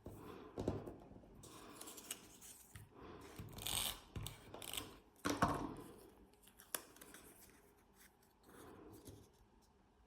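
Small pieces of scrapbook paper being handled on a work surface: intermittent short paper rustles, with a sharp click about seven seconds in.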